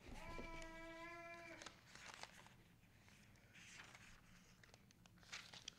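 Near silence: faint rustling of book pages being turned. Near the start a faint, high, steady-pitched vocal call is held for about a second and a half.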